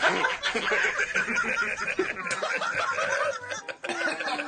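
A group of men laughing together, overlapping chuckles and snickers that keep going, briefly dipping about four seconds in.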